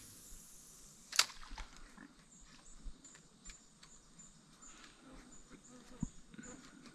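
Faint handling noise of rod, reel and kayak while a cast lure is worked back: scattered light clicks, one sharp click about a second in and a dull knock near the end.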